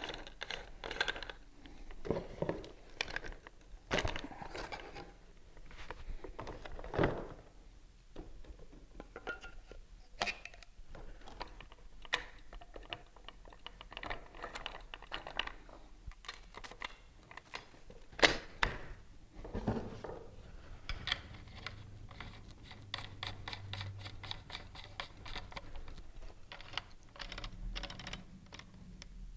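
Scattered small clicks, knocks and metal-on-wood handling sounds as a Weatherby 18i Deluxe semi-automatic shotgun is assembled, with the barrel and forend being fitted to the receiver. One sharper knock comes about 18 seconds in.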